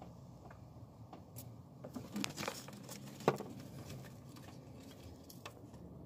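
Hands working among engine wiring, sensors and connectors: faint rustling and scattered small clicks, busier about two seconds in, with one sharp click a little after three seconds.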